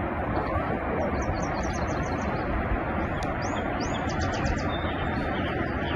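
A small songbird chirping two quick runs of short, high notes over a steady rushing background noise.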